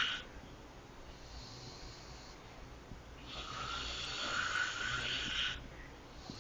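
A person snoring in the back seat of a car: one snore ends right at the start and another long one comes about three seconds in, lasting about two seconds. A steady low rumble runs beneath.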